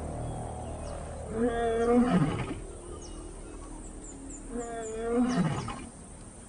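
Lion roaring: two long, deep calls about three seconds apart, each ending in a downward slide in pitch.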